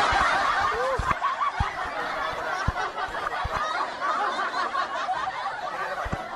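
Several people laughing together in a dense, continuous stretch that starts and stops abruptly, with a few low thumps in between.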